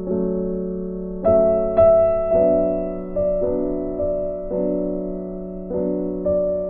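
Background music: slow, soft piano, with notes and chords struck every second or so and left to fade.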